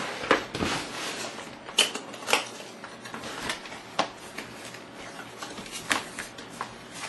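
Cardboard box being handled on a table: turned over and its outer sleeve slid off, with papery scraping and scattered taps and knocks.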